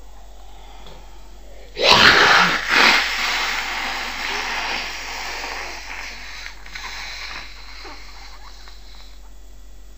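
A young child letting out a long raspy, hissing breath through an open mouth. It starts with a sudden loud burst about two seconds in, surges again a second later, and fades away over the following few seconds.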